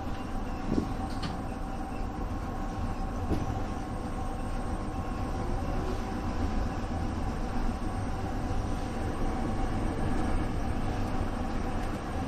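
Sanyo 3050 series electric train running, heard from inside the cab: a steady rumble of wheels and running gear with a faint steady whine, and a few brief clicks in the first few seconds.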